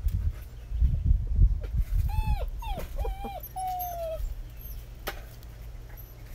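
Six-week-old German Shepherd puppy whining: a few short, high whines about two seconds in, then a longer one that slides slightly down in pitch. Before them comes a low rumble of bumps and knocks, the loudest part.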